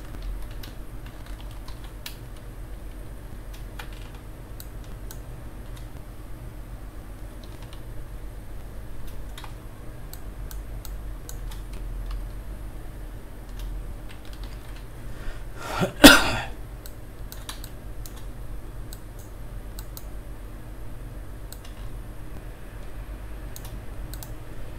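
Scattered computer keyboard and mouse clicks over a steady low hum, with one loud throat-clearing about sixteen seconds in.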